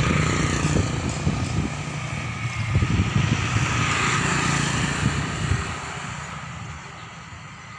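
Motorcycle traffic passing on a road: steady engine and tyre noise that fades away over the last couple of seconds.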